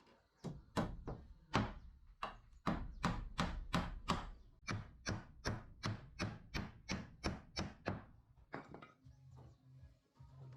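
Rapid, even strikes of a hand tool on wood, about three to four a second, stopping about eight seconds in.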